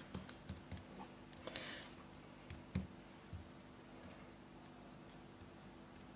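Faint scattered taps and clicks of a rubber glove fingertip dabbing watered-down red ink onto a small paper poppy, mostly in the first three seconds.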